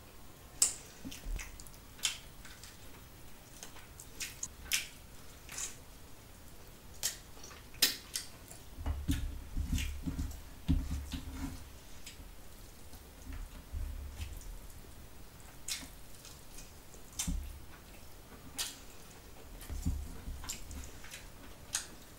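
Close-miked eating sounds: wet lip and tongue smacks as mouthfuls of rice are chewed, scattered irregularly, with some dull low thumps around the middle.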